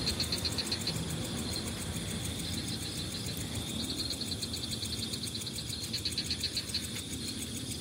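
Crickets chirping in a rapid, evenly pulsed trill that breaks off for a couple of seconds about a second in and then resumes, over a low background rumble.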